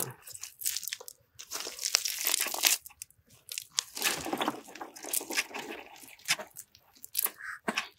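Irregular crunching and rustling of hands working through a wet cast net heaped with small snail shells and dry leaves, with scattered clicks of shells knocking together.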